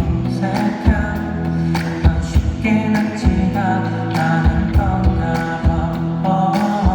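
Pop song with singing over a steady drum beat and sustained bass.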